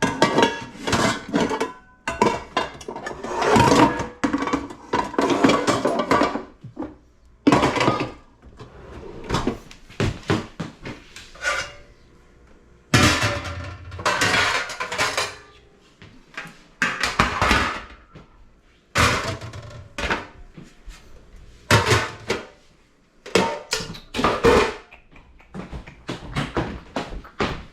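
Pots, pans and other kitchenware clattering as they are handled and tidied: a string of irregular knocks, clinks and scrapes.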